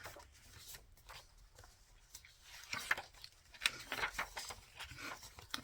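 Paper and card being handled: pages of a journal signature turned and tags shuffled, light rustling with scattered soft taps, mostly in the second half.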